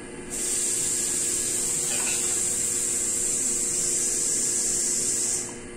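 A steady high-pitched hiss that starts abruptly just after the start and cuts off near the end, over a faint steady hum.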